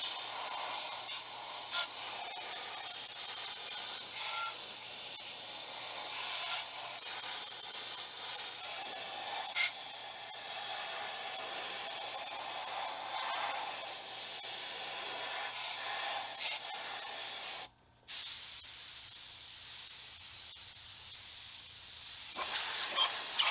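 Steady hiss of compressed air from a blow gun, drying a freshly washed engine block so the cylinder bores don't flash rust. It cuts off for a moment about eighteen seconds in, comes back softer, and grows louder again near the end.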